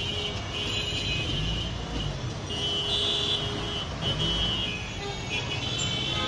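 Road traffic running steadily, with several short vehicle horn toots over it.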